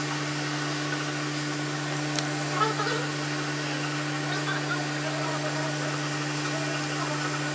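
Corded electric hair clippers running with a steady buzzing hum while being drawn through hair on top of the head.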